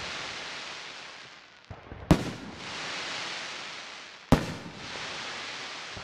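Aerial firework shells bursting: two sharp bangs, about two seconds in and about four seconds in, each followed by a long hissing tail. At the start the hiss left by the previous burst is still dying away.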